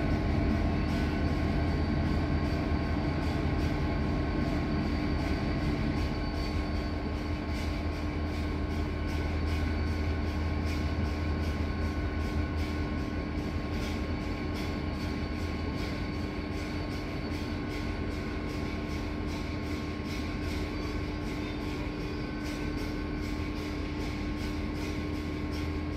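ONCF DH-402 diesel-hydraulic locomotive running light, its engine a steady drone with a low hum and held tones, growing slowly fainter as it draws away.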